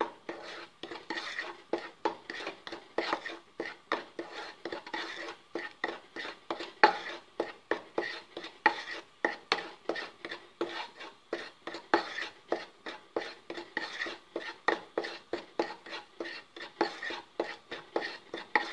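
Wooden spatula stirring and scraping raw rice flour as it dry-roasts in a pan: a steady run of soft scrapes and knocks against the pan, about two or three a second. One knock about seven seconds in is the loudest.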